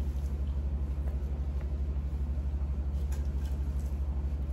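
A steady low hum with a fast, even throb, like a motor or appliance running, with a few faint light taps now and then.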